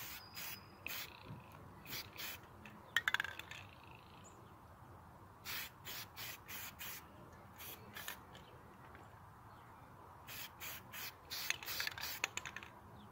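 Aerosol spray can of primer hissing in short bursts, a few a second, in clusters, as the nozzle is pressed and released during a coat.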